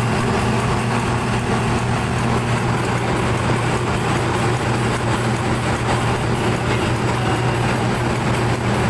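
Steady machinery noise with a strong low hum, typical of a ship's engine-room machinery running.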